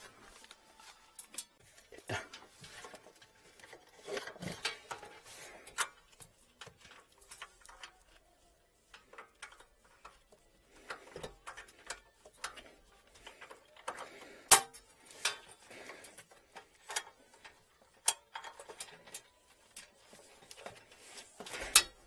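Scattered clicks, taps and rustling from hands working on the brass fittings of a heating distribution manifold, with a few sharp knocks, the loudest about fourteen seconds in and another near the end.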